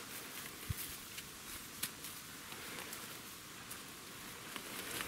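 Faint rustling in forest leaf litter with scattered small clicks and crackles, and one soft low thump just under a second in.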